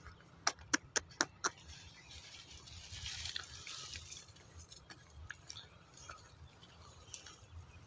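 A quick run of about five sharp snaps of dry plant stalks underfoot, about half a second to a second and a half in, followed by a soft rustle of brushed-aside plants.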